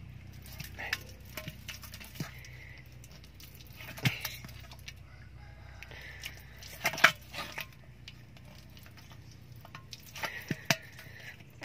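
Water sloshing and splashing in an earthenware jar as a bare hand grabs at a thrashing walking catfish, with a few sharp splashes and knocks, the loudest about seven seconds in. Short animal calls sound in the background.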